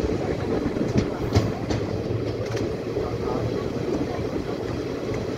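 ICF passenger coach running on the track, heard from beside the coach: a steady rumble of wheels on rail with a few sharp clicks of the wheels over rail joints, mostly between one and two seconds in.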